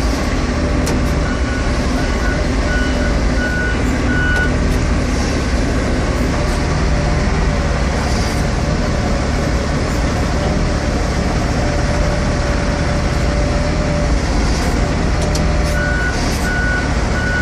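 Heavy loading machine's diesel engine running steadily under load while it manoeuvres, with its reversing alarm giving a run of short evenly spaced beeps a second or so in and again near the end as it backs up.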